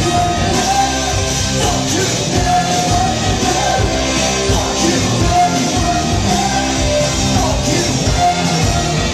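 Rock band playing live at full volume: a lead vocalist sings and shouts long held notes over drums and electric instruments.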